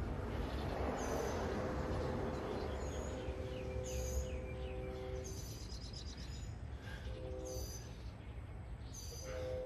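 Street ambience: a broad wash of passing traffic, swelling in the first couple of seconds, with birds chirping in short repeated calls. A steady two-note tone is held for about four seconds, returns briefly, then comes back near the end.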